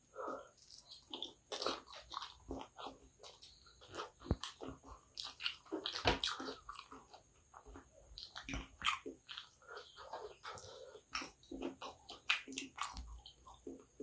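Close-miked chewing and wet mouth smacks of a person eating kottu roti with his fingers: an irregular run of soft clicks and squelches.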